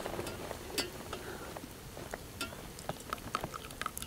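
Faint, scattered clinks and taps of small metal camp items being handled by hand, coming more often in the second half.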